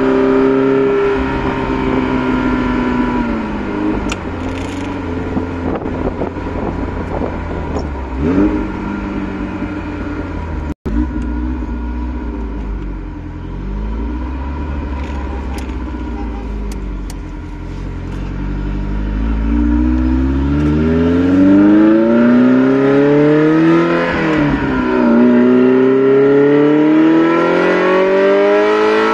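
Ferrari Mondial 3.2's V8 through a custom exhaust, heard from inside the cabin. The revs drop off near the start and the engine runs low and deep for a while, then it revs up hard in rising sweeps through the last third, with a dip at a gear change before climbing again.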